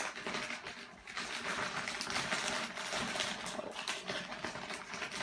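Plastic packaging rustling and crinkling as it is handled, in a steady dense rustle from about a second in.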